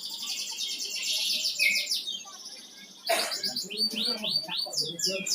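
A flamboyan songbird singing continuously and energetically ('gacor'). It gives a fast, high trill for about two seconds, pauses briefly, then delivers a rapid run of high notes, each sweeping downward.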